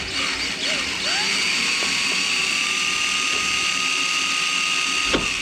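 Power drill running to back out a flathead screw from the boat's deck hardware. Its motor whine climbs in pitch about a second in, holds steady, and stops just before the end.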